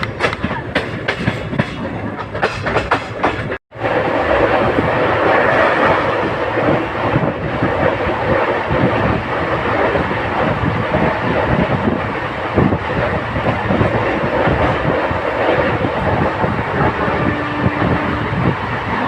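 Passenger express train running on rails, heard from on board. For the first few seconds the wheels click rhythmically over the rail joints. Then, after a brief drop-out about four seconds in, there is a louder steady rumble of the moving train.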